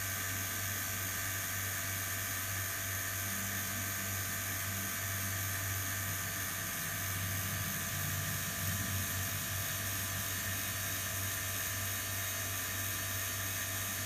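Steady hum with a high whine from a small electric motor running at constant speed.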